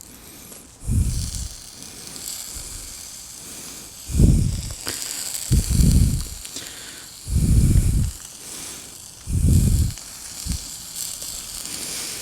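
Steady hiss of pancake batter sizzling on a hot plate over an alcohol stove, broken by low rumbles every second or two.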